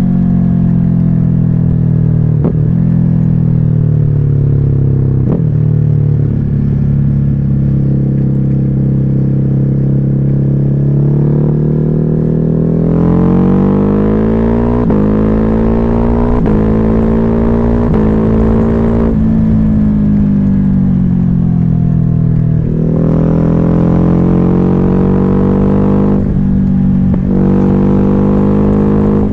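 Ducati Hypermotard 950's L-twin engine running loud through a Termignoni exhaust with the dB killer removed, the motorcycle under way. The engine note climbs and falls several times with the throttle, with a few short sharp cracks along the way.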